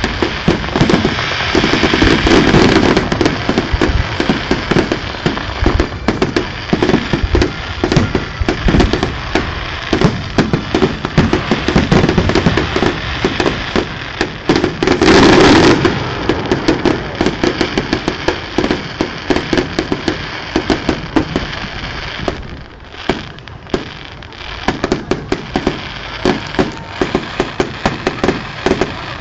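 Fireworks display: a dense, continuous barrage of bangs and crackling, with one long loud blast about halfway through and a short lull a little later before the crackling picks up again.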